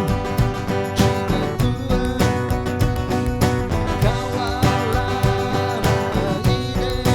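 Background music with a steady beat: guitar-led, country-style song with some singing.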